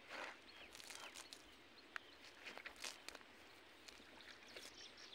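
Quiet outdoor ambience with a few soft, scattered scuffs and rustles of footsteps on dry grass and dirt, and faint high chirps near the end.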